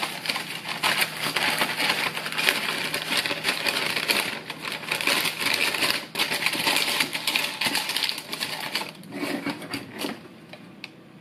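Baking paper crinkling and rustling as it is folded and pressed into a metal loaf tin, a dense run of small crackles that dies away near the end.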